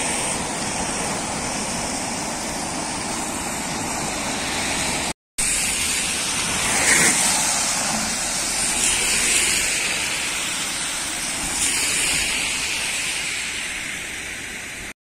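Muddy floodwater rushing along a roadside ditch, a steady churning wash of noise. After a cut about five seconds in, the wash goes on as vehicles drive along the flooded road, swelling briefly as one passes.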